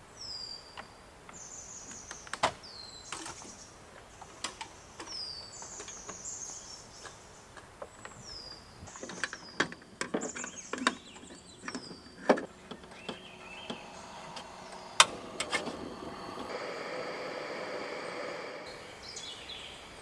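A bird calling over and over with short, high, downward-sweeping whistled notes, about one a second, while metal camp cookware is handled with scattered clinks and knocks. Near the end comes a sharp click, then a steady hiss for about two seconds.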